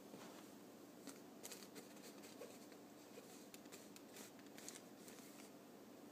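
Faint, scattered scratchy rustling of a cat pawing and clawing at a fabric play tunnel.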